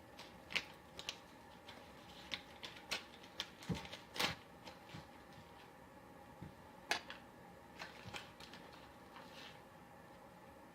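Faint, irregular clicks and rustles of a drink-mix powder packet being handled and emptied into a container of water, with one sharper tick about four seconds in.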